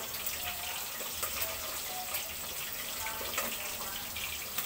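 Coconut-milk sauce simmering in a wok on a gas burner: a steady bubbling hiss with many small pops.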